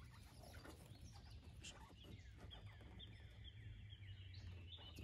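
Quiet outdoor ambience with faint, scattered bird chirps over a low steady rumble.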